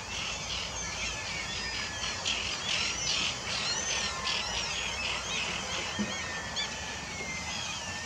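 A flock of birds calling: many short calls that rise and fall in pitch, overlapping thickly for the first few seconds, then thinning out.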